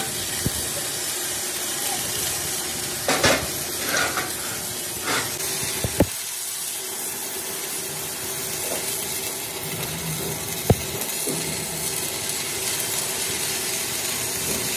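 Stick (arc) welding on a steel truck wheel rim: the arc crackles and sizzles steadily, with a few sharp clicks.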